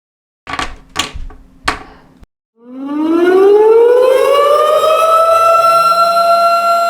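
A few short knocks, then a civil defense warning siren winds up: its pitch rises over about two seconds and settles into a loud, steady tone, sounding an emergency warning of an imminent impact.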